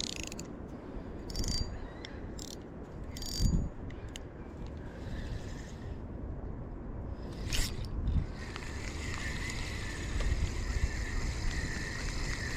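Fishing reel being cranked to reel in line, a steady whirr starting about two-thirds of the way in, after a few sharp clicks. Wind rumbles on the microphone throughout.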